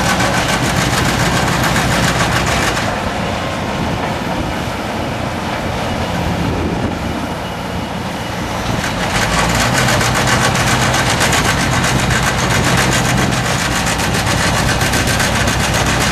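Ride-on double-drum vibratory roller compacting a gravel ramp, its diesel engine running steadily. A fast, dense drum-vibration rattle sounds over the engine, stops about three seconds in and starts again about nine seconds in.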